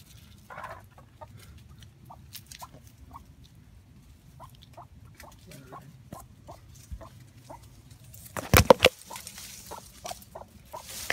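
Backyard chickens making many short, scattered clucks as they scramble over a tomato hornworm, with a brief loud brushing noise about eight and a half seconds in.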